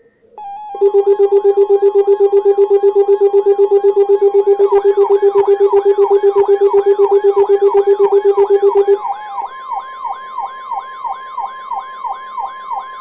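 Weather alert receivers going off ahead of a severe thunderstorm warning. A loud, rapid low beeping runs from about a second in until about nine seconds. About four and a half seconds in, a siren-like wail of about three sweeps a second joins it, and from about nine and a half seconds a steady high tone takes over, the NOAA Weather Radio 1050 Hz warning alarm tone.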